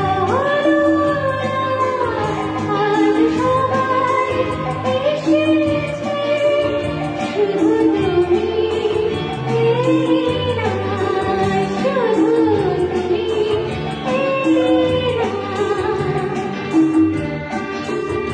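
A woman singing a melodic song with instrumental accompaniment, her voice holding and gliding between long notes over a steady repeating bass line.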